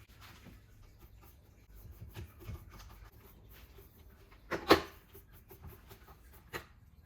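Handling noise of plastic parts as a charger cable is pushed into the cable-tidy slot of a Dyson freestanding dock: faint rustling and small clicks, with one sharp click about two-thirds of the way through and a smaller one near the end.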